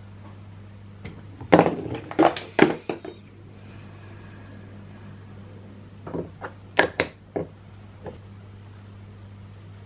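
Small hard objects handled and set down on a table: a quick run of knocks and clicks about one and a half to three seconds in, and another run about six to seven seconds in, over a steady low hum.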